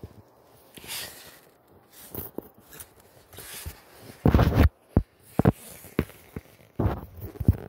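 Irregular scrapes and dull thumps of a phone being handled and brushed as it is moved about. The loudest come in a short cluster about four seconds in and again near the end, with no steady engine sound beneath them.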